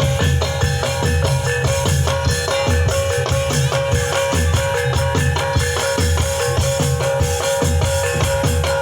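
Jatilan accompaniment music: a Javanese gamelan-style ensemble with drums keeping a steady, driving beat under a held melodic tone.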